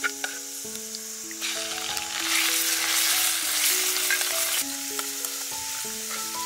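Minced garlic sizzling in hot oil in a pan, with a few utensil clicks at first. The sizzle turns much louder and fuller for a few seconds in the middle as raw shrimp go into the hot pan, then settles back.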